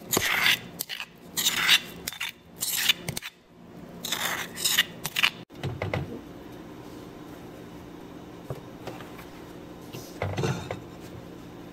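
A wooden utensil scrapes and stirs a wet chili paste around a stone mortar in about six rough strokes. Then a steady low hum follows, with two soft knocks as a wok is handled on a gas stove grate.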